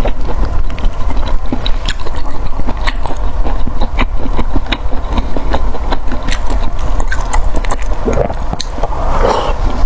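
Close-miked eating: chewing and biting with many short sharp clicks and mouth noises, over a steady low rumble.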